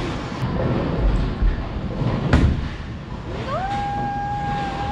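Bowling alley sounds: a short deep rumble about a second in, one sharp crack a little over two seconds in, then a tone that rises and holds steady for about a second and a half near the end.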